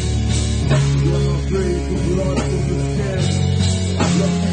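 Metal band playing live: guitar and bass holding low riff notes over steady drum hits.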